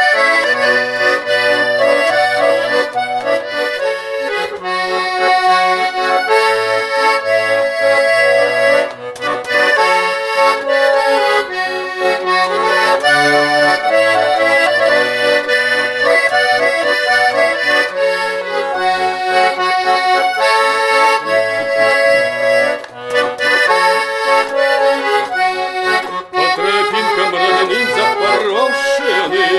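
Russian garmon (button accordion) playing the instrumental introduction to a song: a melody over repeated bass chords.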